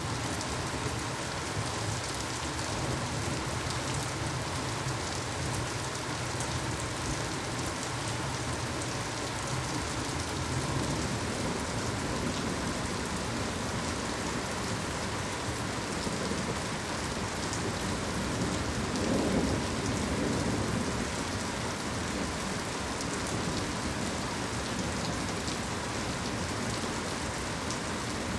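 Heavy rain pouring steadily, with low rolling thunder underneath. A louder thunder rumble swells about two-thirds of the way through.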